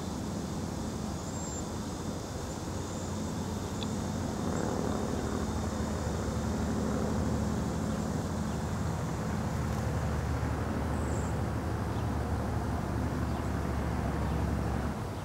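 Steady low rumble of distant engine noise, growing a little louder about four seconds in.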